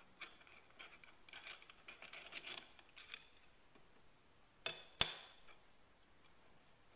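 Metal parts of a Kitagawa QCRL collet chuck clicking and scraping as it is taken apart, then two sharp metal knocks close together, the second the loudest.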